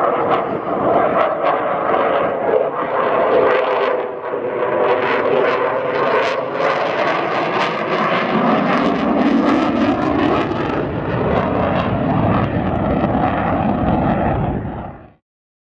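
Eurofighter Typhoon's twin jet engines running loud through a display pass: a dense jet noise whose pitch sweeps as the aircraft moves, with a crackling edge in the middle and a deeper rumble building in the second half. It cuts off suddenly near the end.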